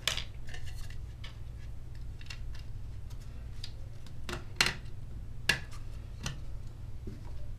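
Scattered light clicks and taps as a 2.5-inch solid state drive is handled and set into a MacBook Pro's drive bay, a few sharper clicks about halfway through, over a steady low hum.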